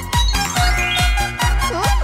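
Electronic dance music with a steady kick drum about two beats a second, synth notes and a rising sweep in the middle.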